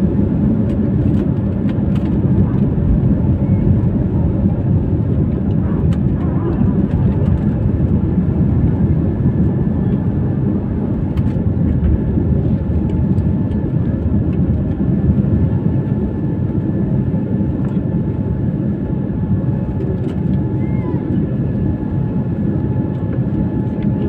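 Airbus A320-family jet airliner's engines at takeoff thrust, heard from inside the passenger cabin: a loud, steady low rumble and rush through the takeoff roll and climb-out.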